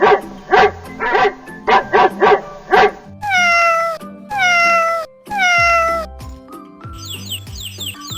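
A dog barking six times in two quick sets of three, then a cat meowing three times, each meow long and falling in pitch, over light background music.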